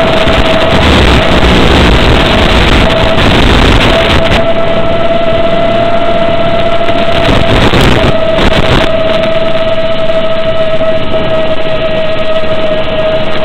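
Electric motor and propeller of a radio-controlled FPV aircraft in flight, heard over the analog video link's audio as a steady high hum buried in loud static hiss. The hum drops out briefly a few times early on and sinks slightly in pitch near the end.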